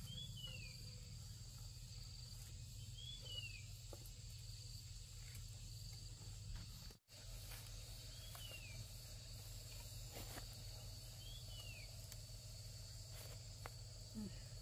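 Forest ambience: insects droning steadily at a high pitch, with a short falling whistled call repeating about every three seconds. The sound cuts out for an instant about halfway through.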